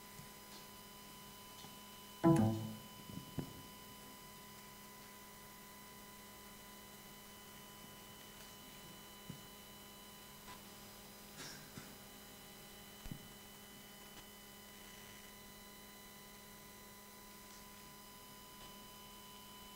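Steady electrical hum and whine from a sound system, holding at several pitches. A short louder sound comes about two seconds in, and a few faint clicks follow.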